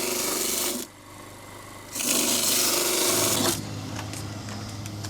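Coconut flesh being grated: two long spells of rasping scraping, the second starting about two seconds in. A low steady hum follows.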